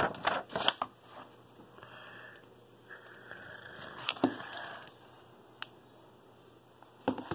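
Handling noise from a phone being moved about: a few knocks and clicks, with soft rustling as a small notebook is picked up and held to the camera.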